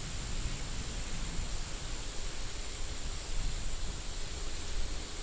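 Steady rainforest ambience: an even hiss with a low rumble underneath and a constant thin high tone.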